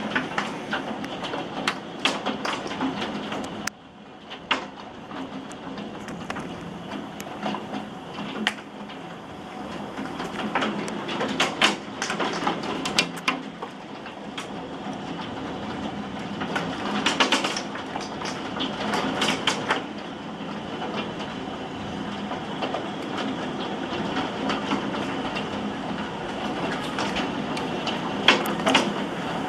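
Hailstones up to about 3 cm and heavy rain pelting roofs, trees and a balcony in a thunderstorm: a steady rush of rain with dense, irregular sharp knocks of hail striking hard surfaces, heaviest near the middle and near the end.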